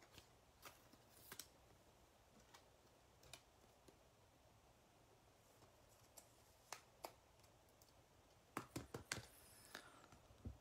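Faint, scattered clicks and ticks of a stack of trading cards being handled and flipped through by hand, with a quick run of clicks near the end; otherwise near silence.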